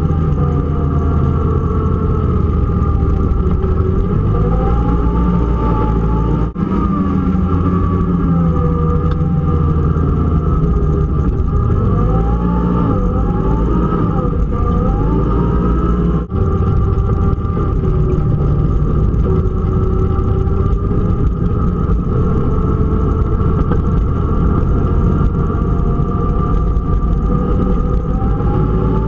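Four-stroke ATV engine running under way, heard from the riding quad: a steady low rumble whose pitch rises and falls as the throttle is worked. The sound drops out for an instant twice, about six and sixteen seconds in.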